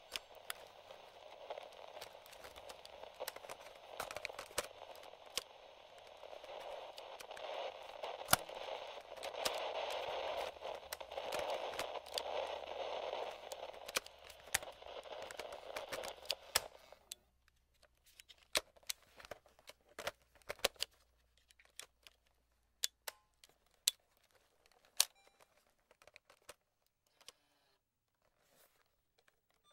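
Light static from a vintage AM/FM cassette-recorder radio, with small clicks of its controls, cutting off suddenly a little past halfway. After that, only scattered plastic clicks and taps of its sliders and switches being worked.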